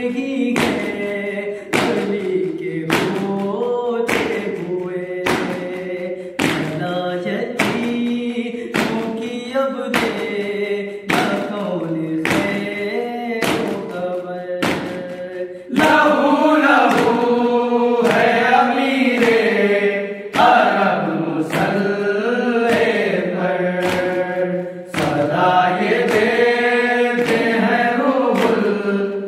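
Group of men chanting a nauha, a Shia lament, in unison, keeping time with matam: hands slapping on their chests about every three-quarters of a second. The singing grows louder about halfway through.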